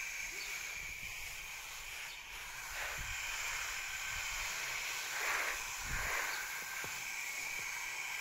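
Garden hose shower-spray nozzle watering leafy plants: a steady hiss of spray splashing onto the foliage, swelling and easing as the spray is swept across the bed.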